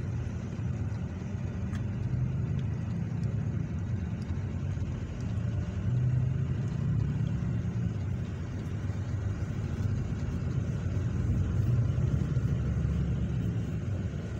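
Steady low rumble of a road vehicle on the move, engine and tyre noise, swelling a little now and then.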